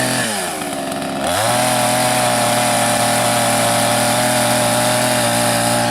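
Chainsaw engine easing off toward idle, then revving back up about a second and a half in and holding steady at high speed while cutting a round of wood.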